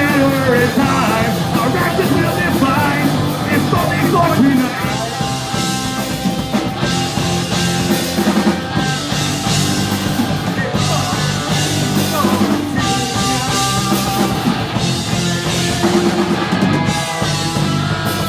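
Live rock band playing loud: distorted electric guitar, drums and a vocalist singing into a microphone.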